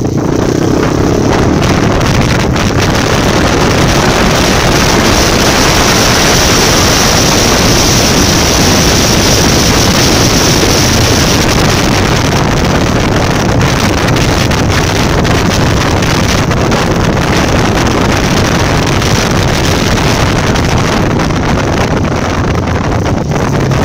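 Honda CRF250 Rally's single-cylinder four-stroke engine running steadily as the bike is ridden, heard through a phone mounted on the bike and buried under loud wind noise on its microphone.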